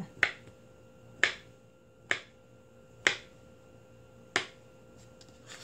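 Kitchen knife slicing a peeled kiwi into rounds, the blade knocking sharply on a plastic cutting mat with each cut, about once a second.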